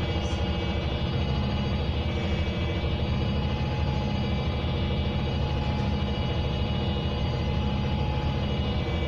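Orion VII compressed-natural-gas transit bus idling steadily at the curb, its engine a constant hum that holds pitch and level throughout.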